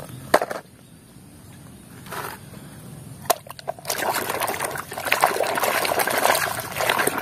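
A hand swishing and scrubbing a plastic toy in a bucket of muddy water, sloshing and splashing steadily from about four seconds in. A sharp knock comes near the start.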